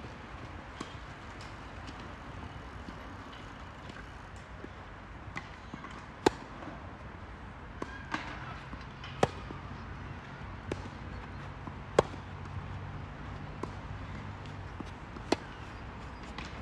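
Tennis rally: a tennis ball struck back and forth by racquets, with sharp hits. The loudest come about every three seconds, with fainter hits and bounces in between.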